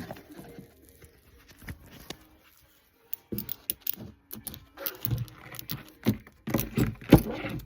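Small metal scrap parts clinking and rattling as they are handled, in scattered clicks at first and then a denser, louder run of rattles from about three seconds in.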